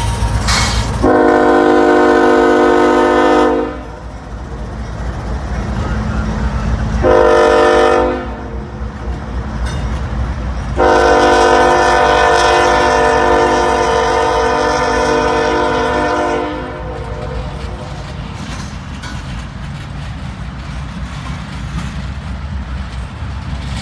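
CSX freight locomotive's air horn sounding three chord blasts, long, short, then a long held one, over the steady rumble of the train rolling past.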